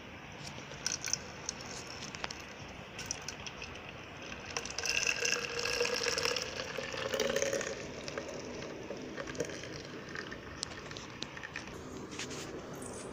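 Milk poured from a red container into a clear plastic mixer jar, a gushing, filling pour of about three seconds midway, with a few light knocks of handling before and after.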